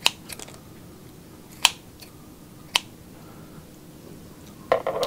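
Kitchen scissors snipping through a piece of cooked squid: a few sharp clicks as the blades close, about a second apart. Near the end there is a short burst of handling noise.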